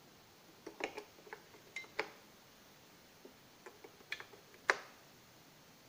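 AA batteries being pressed into a plastic toy's battery compartment: a string of light clicks and knocks as the cells go in against the metal contacts, with one sharper snap about three-quarters of the way in.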